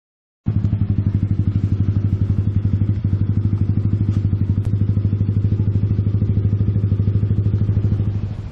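An engine running close by with a fast, even pulsing beat and a strong low hum. It cuts in suddenly about half a second in and eases off near the end.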